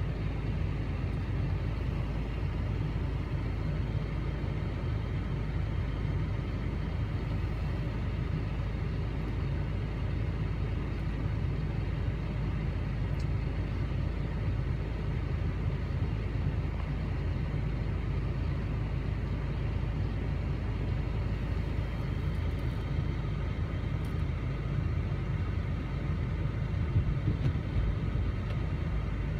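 Vehicle engine running with a steady low rumble, heard from inside the cabin.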